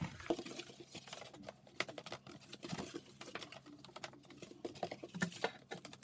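Thin cardboard kit pieces being handled and folded along their pressed creases: an irregular run of quick clicks, crackles and rustles.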